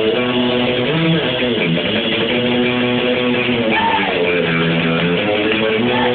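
Rock'n'roll band playing live, an electric guitar strummed over a bass line.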